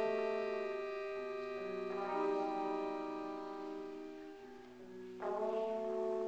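Live music from a quartet of trombone, clarinet, accordion and guitar playing slow held chords, the chord changing about two seconds in and again about five seconds in.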